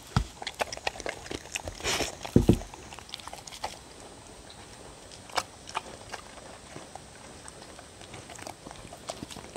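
Two dogs eating and licking from wooden bowls close to the microphone: wet chewing, lapping and tongue clicks, with a couple of dull thumps in the first few seconds. The clicks come thick at first, then thin out to occasional licks.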